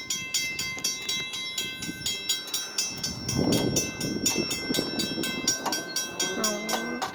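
Railroad crossing bell ringing rapidly, about five strikes a second, over the low rumble of a train; the bell stops near the end.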